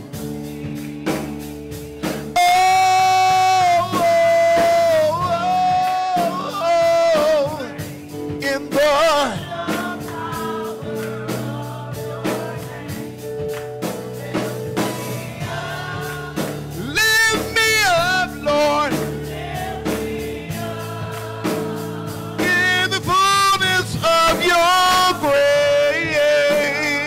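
Gospel worship song sung by a small group of women's voices over sustained keyboard chords, with long held notes and melismatic runs.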